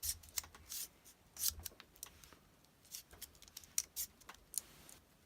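Leatherman OHT multitool being handled: scattered sharp metallic clicks and a few short scrapes as its sliding pliers and fold-out parts are worked.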